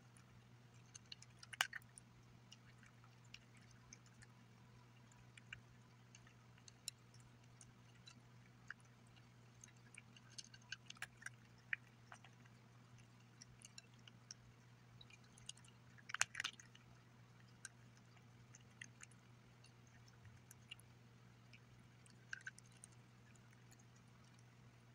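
Cat crunching dry kibble from a bowl: faint, scattered crunches and clicks, with louder bursts about a second and a half in and again around sixteen seconds in, over a steady low hum.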